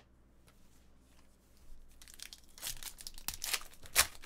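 Foil wrapper of a Panini Select football card pack crinkling and being torn open by hand. The crackling starts about halfway in and builds, with a sharp rip near the end as the pack comes open.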